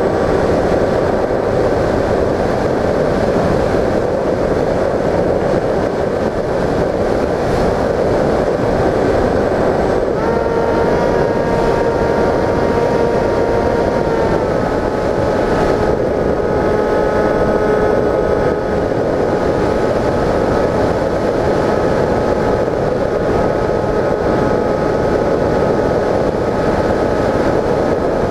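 Wind rushing past an onboard camera in flight, over the steady whine of an RC plane's electric motor and propeller. The whine rises in pitch about ten seconds in and drops back a little some four seconds later, as the throttle is changed.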